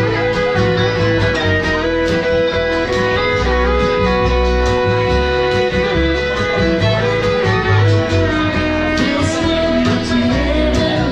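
Bluegrass band playing an instrumental passage: fiddle carrying the melody over banjo, acoustic guitar and upright bass.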